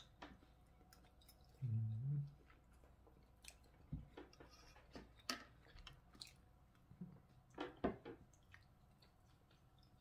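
A person chewing a mouthful of gyro cheese fries, with soft wet mouth sounds. A short low hum of the voice comes about two seconds in, and scattered soft clicks follow.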